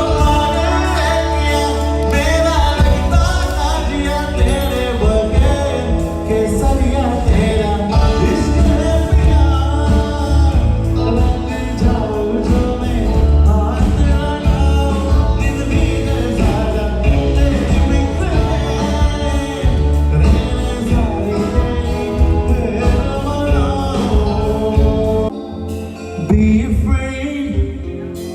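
Live band music with singing, played over a PA system; the deep bass drops away near the end.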